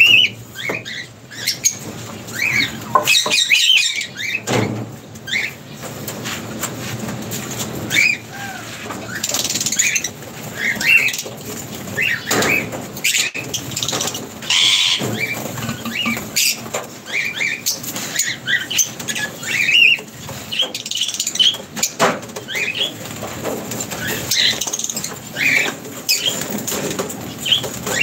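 Lovebirds chirping, short high calls scattered all through, mixed with wing flutters and small knocks as birds fly in and land on a perch.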